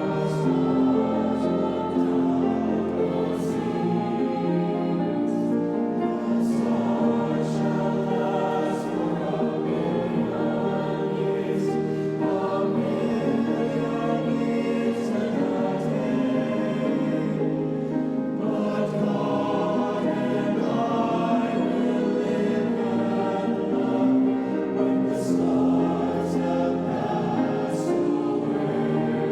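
Youth choir singing in parts, holding long chords that change every few seconds.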